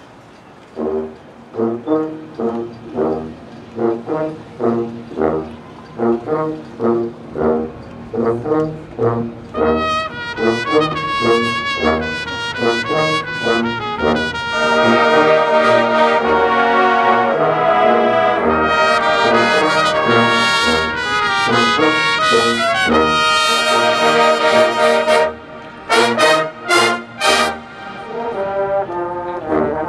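Drum and bugle corps brass line with pit percussion playing: short, separated notes at first, building into loud, full held brass chords. Near the end the music breaks off suddenly, a few hard accented hits follow, and it builds again.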